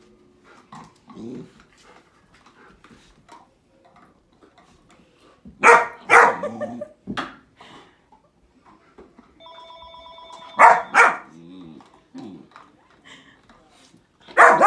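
Puppy barking: short sharp barks in pairs, about six seconds in, again near eleven seconds, and again at the end, with quiet stretches in between.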